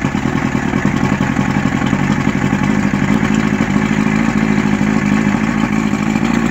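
An engine running steadily at a constant speed, with a strong, even low hum.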